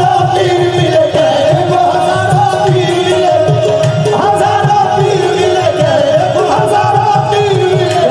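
Qawwali music: harmonium playing a held, wandering melody over a steady tabla and dholak rhythm.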